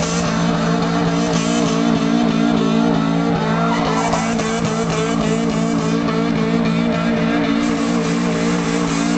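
Honda Civic EF hatchback doing a burnout: its four-cylinder engine held at steady high revs while the spinning tyres squeal.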